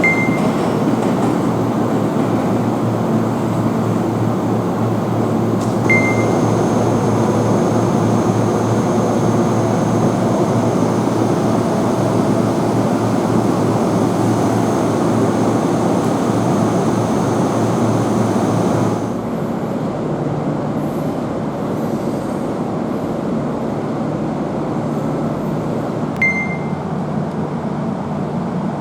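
Kintetsu limited express train noise: a steady rumble with a low hum, and a thin high whine from about six seconds in that stops at about nineteen seconds, where the sound gets a little quieter. Three short high beeps sound, at the start, about six seconds in and near the end.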